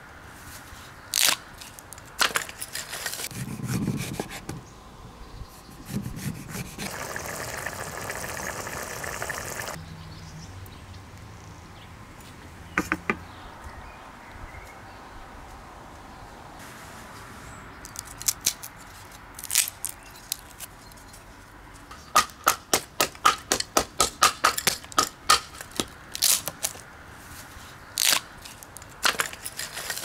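Campfire crackling: burning wood snapping and popping in sharp irregular cracks, with a quick run of pops later on.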